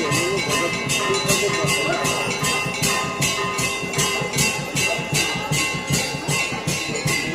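Hindu temple devotional music: metal hand cymbals and bells struck in a fast, steady rhythm of about three to four beats a second, with a drum beating underneath and bells ringing on steadily.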